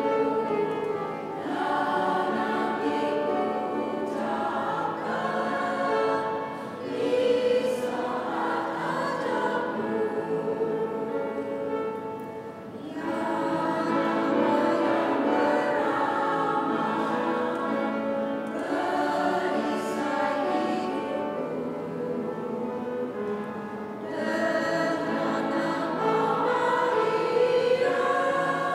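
Two-part church choir singing a hymn in sustained phrases, with short breaks between phrases about a second in, near the middle and about two-thirds of the way through.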